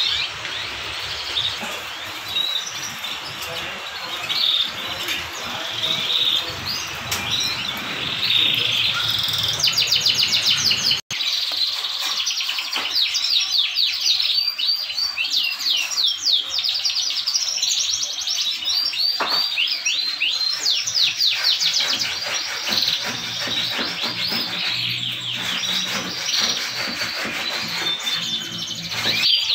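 Many caged domestic canaries, males kept in singing form, chirping and singing together in a dense chorus of fast rolling trills. The sound cuts out for a moment about a third of the way through, then the trilling continues strongly.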